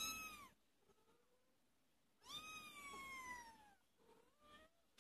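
Month-old kittens mewing: a short high mew at the start, then a longer mew about two seconds in that slides down in pitch, and a few faint little mews near the end.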